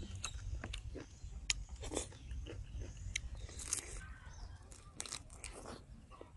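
Close-miked chewing and biting as a person eats stir-fried blue crab, heard as a string of irregular sharp mouth clicks and smacks.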